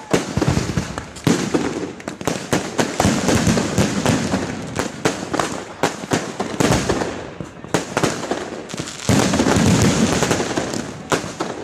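Fireworks bursting overhead in rapid succession: a dense run of sharp bangs and crackling, loudest and thickest near the end.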